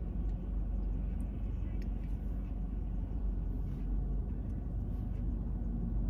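Steady low rumble of a car's engine idling, heard from inside the cabin, with a few faint small clicks.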